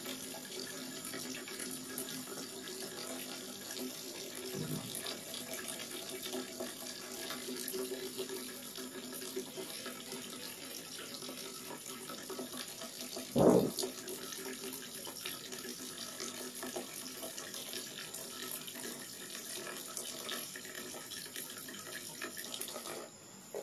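Water sprinkling from the rose of a plastic watering can onto potted plants and soil, a steady hiss. About halfway through, a short loud voice sound breaks in once.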